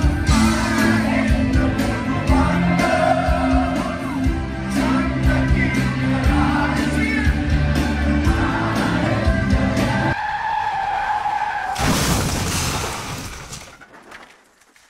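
Live concert music, a band with singing, loud and close through a phone microphone. About ten seconds in the bass drops out, leaving a held note. A loud burst of noise follows, and then the sound fades out.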